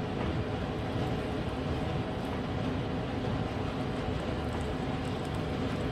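A steady machine hum with a rushing noise under it, holding an even level with no distinct knocks or splashes.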